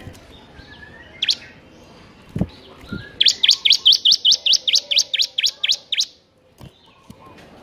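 Bar-winged prinia (ciblek) singing. A single sharp note comes about a second in, then a fast, even run of about fifteen repeated high chirps, some five a second, lasting about three seconds.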